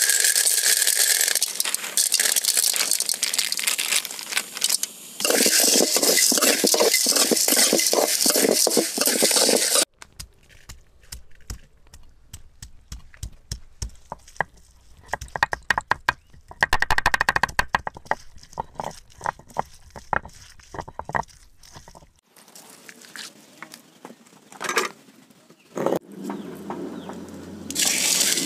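Peppercorns, cumin and fennel seeds dry-roasting in an aluminium kadai, rattling and scraping under a metal spatula. After about ten seconds this gives way to a quieter stretch of gritty clicks and knocks from a hand-held grinding stone being worked over a stone slab (ammi kal) to grind a wet paste.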